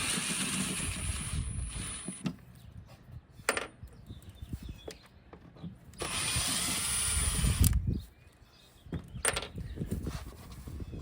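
Power drill/driver with a T25 Torx bit running in two steady bursts of about two seconds each, one at the start and one about six seconds in, backing out screws; a few short sharp clicks come between the runs.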